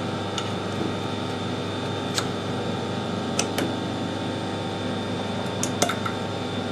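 Steady machine hum in a workshop, with scattered light metallic clicks as pliers grip a small cutter and work its shank in and out of a freshly reamed bore.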